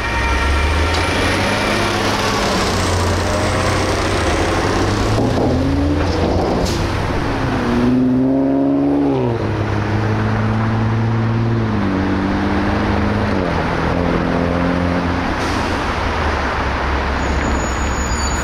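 Road traffic: cars driving past one after another, their engine notes rising and then falling in pitch as each goes by. A railroad crossing bell rings over the first two seconds and then stops.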